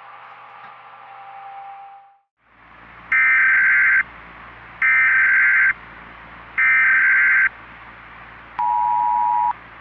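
Emergency Alert System alarm: over a steady hiss of static, three loud bursts of the screeching SAME header data tones, then a brief blast of the two-tone attention signal. Soft ambient music fades out in the first two seconds, before the alarm.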